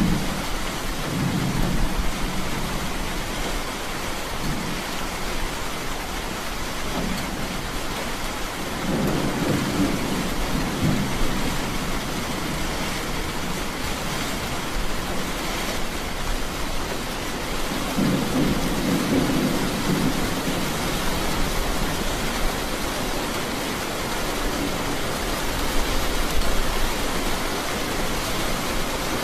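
Thunderstorm ambience: steady rain hiss with several low rolls of thunder swelling and fading.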